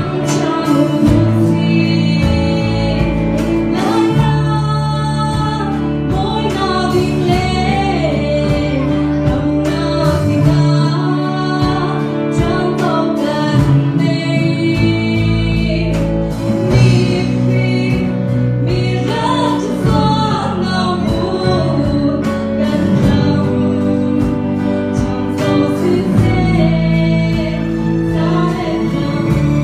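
A woman singing a song into a microphone with a live band of electric and acoustic guitars, amplified through PA speakers.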